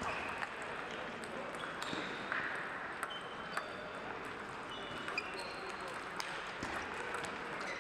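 Busy table tennis hall: scattered sharp clicks of table tennis balls hitting bats and tables from the surrounding matches, short squeaks of shoes on the sports floor, and a murmur of voices.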